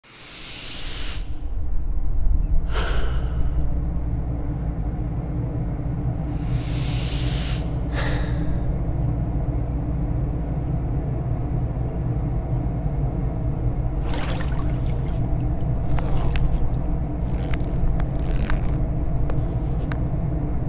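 A steady low rumbling drone, with two deep breaths about six seconds apart near the start, then scattered irregular crackling from about fourteen seconds on.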